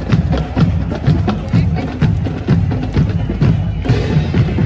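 Marching drums playing a steady beat of about two strikes a second, with low drum thumps under sharp, clicking hits.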